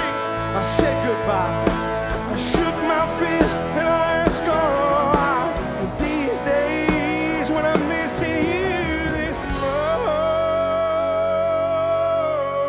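Live country-rock band playing, with electric and acoustic guitars, bass, drums and a lead vocal. About ten seconds in the drums drop out and a long note is held over a sustained chord.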